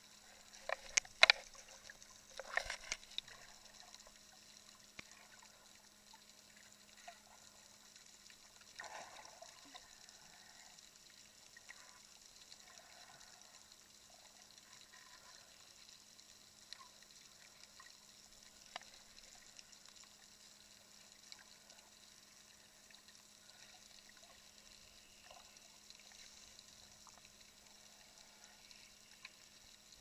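Quiet underwater sound from a camera held below the surface: faint water movement with scattered small clicks and crackles, over a steady low electrical hum. A few loud, sharp bursts of noise come one to three seconds in.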